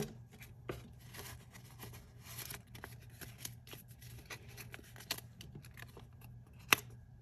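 Quiet rustling and light taps of paper bills and a paper envelope being handled as cash is stuffed into the envelope, with one sharper click near the end.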